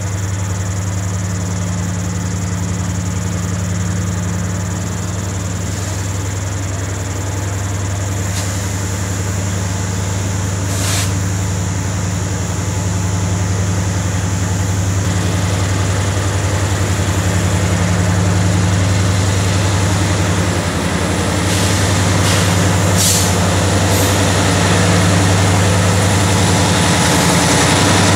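Two CC 205 diesel-electric locomotives pulling a long loaded coal train slowly closer, their engines giving a steady low drone that grows gradually louder. A few short high hisses come through, one about a third of the way in and several more in the second half.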